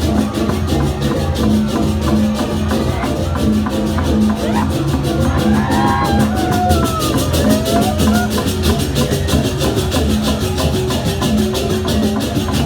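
Balinese processional gamelan music: fast, steady clashing of hand cymbals over drums and sustained gong tones.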